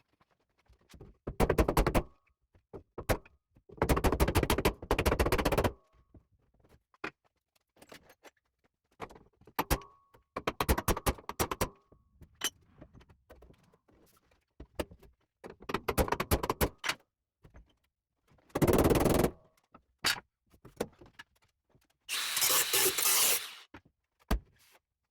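Hammer driving a wooden block against the steel repair panel at the bottom of a car door, putting more angle into its folded rear edge. The blows come in about six bursts of rapid strikes, each one to two seconds long, with odd single knocks between them.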